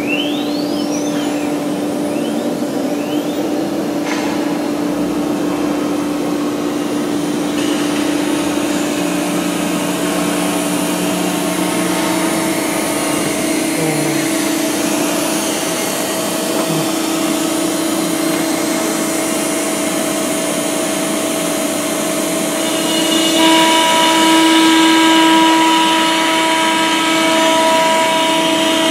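ATC CNC wood router running, its spindle whining steadily as the cutter carves lettering into a wooden board. A faint rising whine sounds in the first few seconds, and about 23 seconds in the cutting grows a little louder and brighter.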